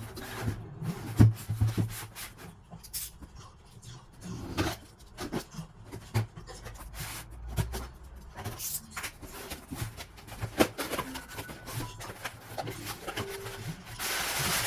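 Figure boxes and packaging being handled by hand: irregular rubbing, scraping and sharp taps, with a louder stretch of rustling near the end.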